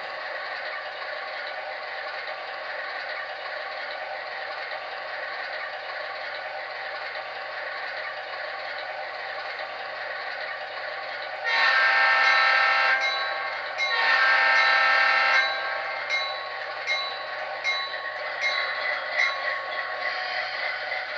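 Model locomotive sound decoder playing a GE Dash 9 diesel idling through tiny speakers, with two long horn blasts about halfway through. A string of short sharp sounds follows the horn.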